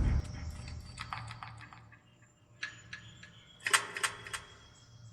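Caulking gun loaded with a tube of concrete and mortar repair, its trigger clicking as it is squeezed: small clusters of sharp clicks, the loudest group a little past the middle. A low rumble dies away at the very start.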